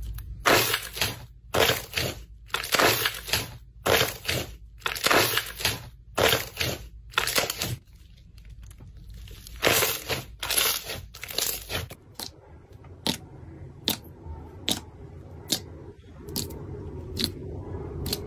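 Hands squeezing and stretching clear slime, making wet crackling pops about twice a second, then sparser sharp clicks. A few seconds from the end the sound turns softer and steadier as a thick, butter-coloured slime is pressed.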